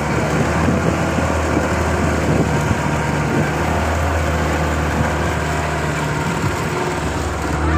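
Passenger boat's outboard motor running steadily under way, a constant low hum with the rush of water and air around it.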